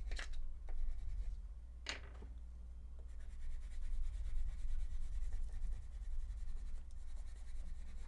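Wax crayon rubbing and scribbling across paper as a wing is coloured in, with a sharp tap just after the start and another about two seconds in, over a steady low hum.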